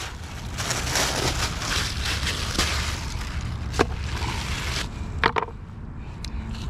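Plastic bags crinkling and rustling as a shad is unwrapped onto a bait-cutting board, with a few sharp knocks on the board in the middle; the rustling stops about five seconds in.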